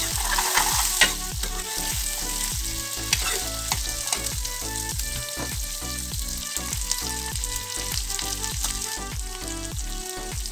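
Diced potatoes, onion, carrots and peas frying in oil in a heavy-based metal kadhai, sizzling steadily while a spatula stirs them, with clicks and scrapes of the spatula against the pan, loudest about a second in. The vegetables are being sautéed before the rice goes in.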